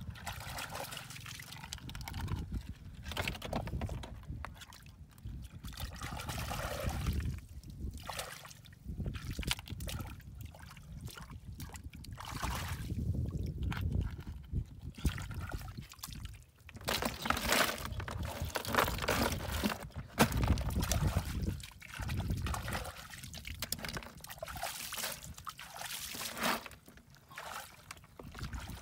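Hands digging and scooping in wet mud and shallow muddy water, squelching and splashing in irregular bursts.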